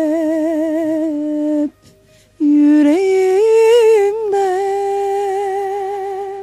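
A voice humming the slow, wordless close of a song in long held notes with vibrato, breaking off briefly about two seconds in, then resuming and fading out at the end.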